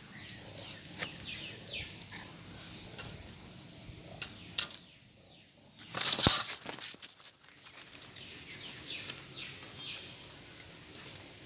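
A mouse squeaking in many short, high, falling chirps, with a brief loud scuffle about six seconds in.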